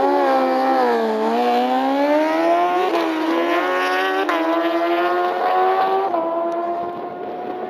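Two drag-racing motorcycles launching hard from the start line and accelerating flat out. The engine note climbs in pitch through each gear, with gear changes breaking it about three, four and six seconds in, and it gets a little quieter near the end as the bikes pull away.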